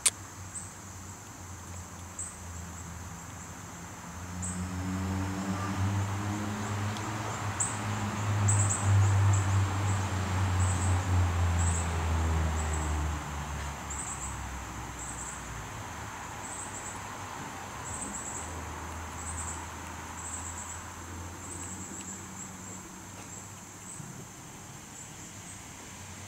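A motor vehicle's low engine rumble swells and fades over about ten seconds, its pitch gliding as it passes. Throughout, insects give short, high chirps that repeat about once or twice a second.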